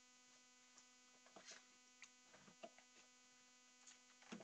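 Near silence: a faint, steady electrical hum on the audio line, with a few faint, scattered clicks.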